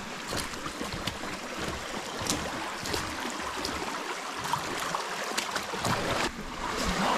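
Footsteps wading through a shallow, stony creek: irregular splashes and clicks of stones underfoot over the steady rush of running water, which gets a little louder near the end.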